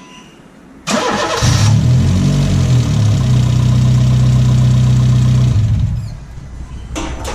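Honda City Aspire 1.5 i-VTEC four-cylinder engine with an HKS straight-pipe exhaust being started: a short burst of starter cranking about a second in, then the engine catches and runs with a loud, steady note for about four seconds before it is shut off.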